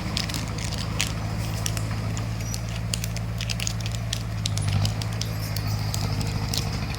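Crawler bulldozer's diesel engine running steadily under load, briefly a little louder just before five seconds in, with many scattered sharp cracks and snaps from the machine's work.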